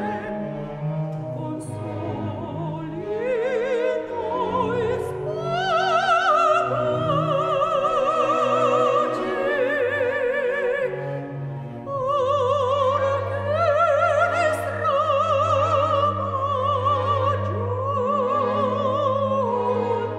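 Operatic soprano singing long held notes with a wide vibrato over orchestral accompaniment, climbing to high sustained notes, with a brief break about two-thirds through before a new phrase.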